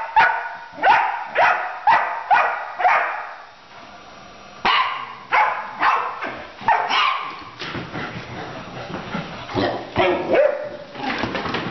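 Dog play-barking: sharp, high barks about two a second, a brief pause about three seconds in, then another run of barks. Quieter, scattered sounds follow, with a few more barks near the end.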